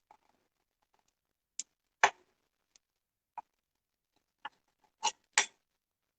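A knife knocking against the cutting surface while slicing a toasted quesadilla into wedges: about seven sharp, irregular clicks, the loudest about two seconds in and two in quick succession near the end.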